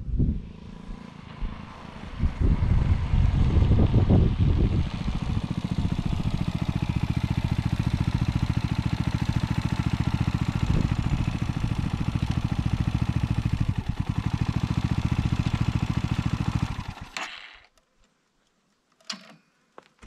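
Brixton Felsberg 250 motorcycle's single-cylinder engine: the bike rides in and stops, its note rising and falling over the first few seconds. It then idles with a steady, even beat until it cuts off about three seconds before the end, followed by a couple of faint clicks.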